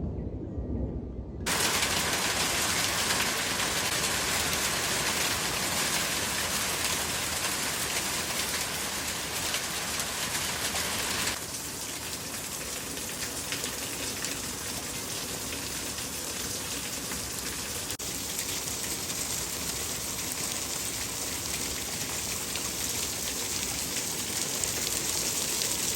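Hailstorm: hail and rain pelting down in a dense, steady hiss that comes in abruptly about a second and a half in after a fading low rumble, and drops a little in level about midway.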